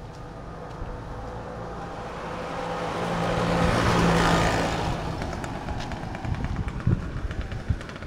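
A motor vehicle passing by on the road: its engine and tyre noise swell to a peak about four seconds in, then fade away.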